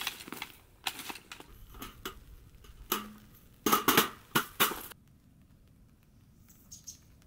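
Clattering and knocking of a folding camp chair and a folding table being opened and set down, with three sharp knocks about four seconds in. The clatter stops suddenly about five seconds in, leaving only a faint background.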